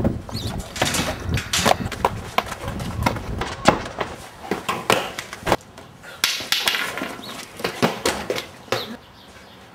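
A run of irregular sharp knocks and clicks, some loud, coming several times a second and thinning out near the end.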